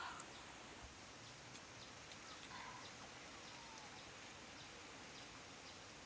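Faint woodland ambience: a steady low hiss with a few short, high bird chirps scattered through it and one faint falling call about three seconds in.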